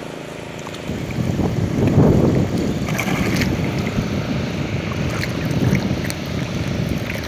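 Lake water sloshing and splashing around a man wading waist-deep as he hauls in a cast net by hand. A loud, irregular low rumbling wash starts about a second in.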